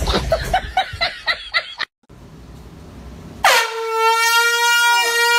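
A handheld canned air horn sounds without warning about three and a half seconds in, one loud steady blare that is held to the end, with a startled cry from the man it wakes rising under it near the end. Before it come about two seconds of choppy, pulsing noise that cut off abruptly.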